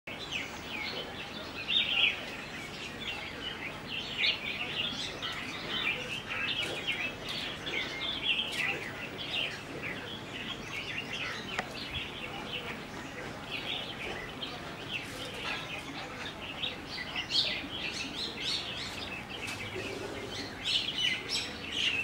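A flock of red-whiskered bulbuls chirping and chattering without pause, many short, high calls overlapping, with a few louder calls standing out about two seconds in and again around seventeen seconds.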